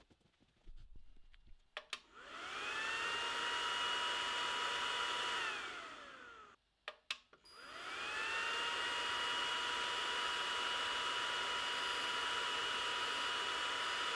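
Cooling fan of the xTool D1 Pro 20W laser head spinning up with a rising whine and then blowing steadily. About five seconds in it winds down with a falling whine; after a short gap and a couple of clicks it spins up again and runs steadily.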